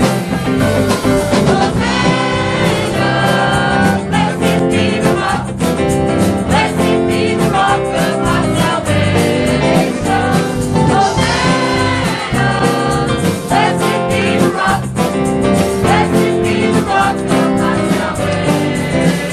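Gospel-style church worship music: several voices singing together over a band with a steady beat.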